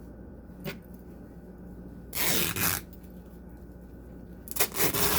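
A cloth rag being pulled out and handled: a light click, then two short bursts of fabric rustling about two seconds in and near the end, over a steady low hum.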